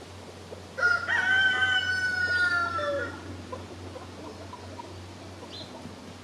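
A rooster crows once, starting about a second in: a single loud crow of a little over two seconds that sags slightly in pitch at the end. It is followed by a few soft hen clucks.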